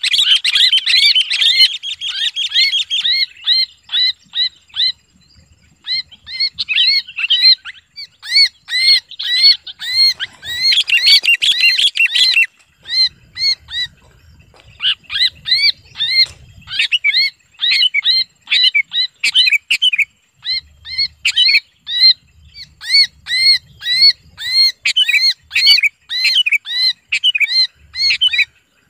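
Sooty-headed bulbul (kutilang) held in the hand giving loud, rapid distress screams: a dense run of short harsh notes several a second, easing off briefly about halfway. This scream of a captured bulbul is the call trappers use to lure other bulbuls in.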